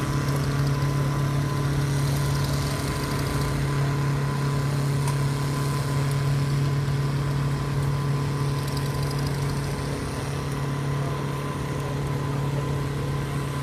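Tractor engines running at a steady speed, a constant low hum that holds one pitch.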